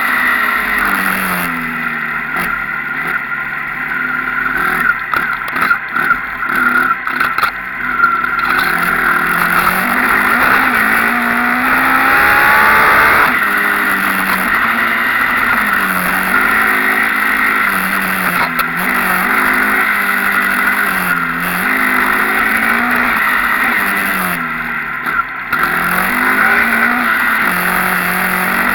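Off-road motorcycle engine ridden around a dirt track, the revs repeatedly climbing and dropping every second or two as the rider works the throttle and gears. A few seconds in the engine eases off and scattered knocks are heard.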